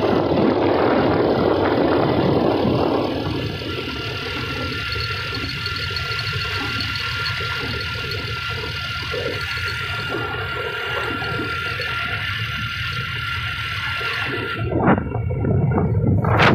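Running noise of a road vehicle on the move: the engine's hum mixed with rushing wind and tyre noise, steady throughout, louder for the first few seconds, with a single knock about a second and a half before the end.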